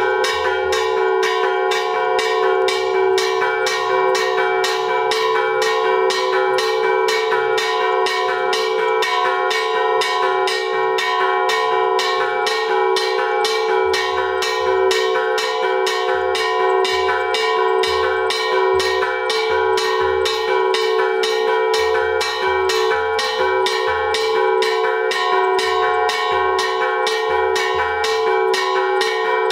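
Metal struck in an even rhythm, about two strikes a second, with a steady bell-like ringing that carries on between the strikes.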